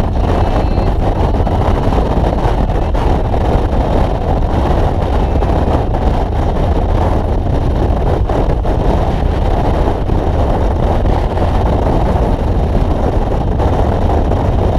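Harley-Davidson touring motorcycle riding at steady road speed: a constant rush of wind on the microphone mixed with engine and road noise, with no change in pace.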